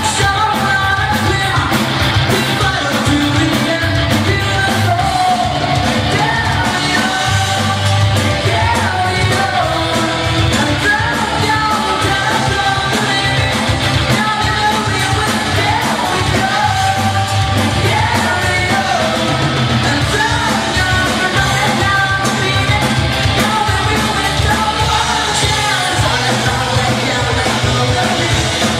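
Live rock band playing a song: a lead singer singing into the microphone over electric guitar, bass guitar and drums, continuous and loud.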